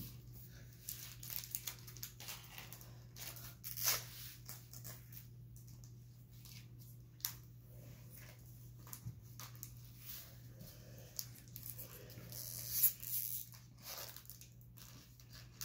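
Foil wrapper of a Magic: The Gathering booster pack crinkling and tearing as a child picks at it, in scattered small crackles with a louder rip about 13 seconds in. A faint steady hum runs underneath.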